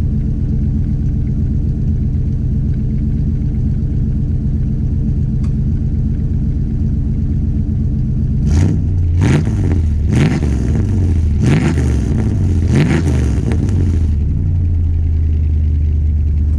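Motorhome engine idling through a newly fitted exhaust (2.5-inch pipe into the muffler, 3-inch tailpipe), heard at the tailpipe with a throaty note. About halfway through it is revved in about five quick throttle blips, each rising and falling in pitch, then settles back to idle.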